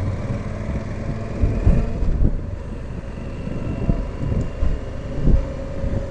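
Motorcycle running at a steady cruise while riding, with wind buffeting the microphone in uneven low gusts.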